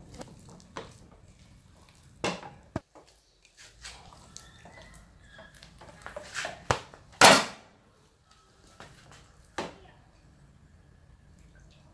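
Irregular knocks and clatter of kitchen utensils and dishes being handled, about seven in all, the loudest a little past seven seconds in.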